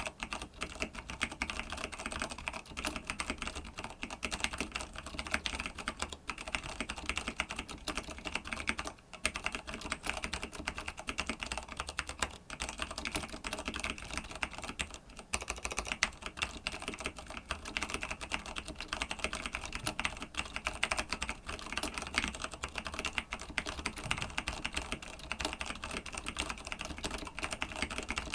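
Fast, continuous typing on a TG3 BL-82 mechanical keyboard with stock vintage Cherry MX Clear tactile switches, a dense run of keystrokes broken by a few brief pauses.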